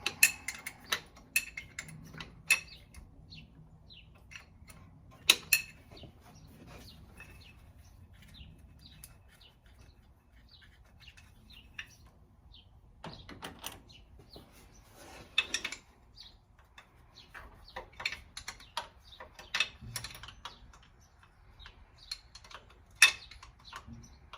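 Scattered sharp metallic clinks and rattles of hand tools and small engine parts being picked up and set down, with a few short bouts of shuffling and handling, during an engine teardown.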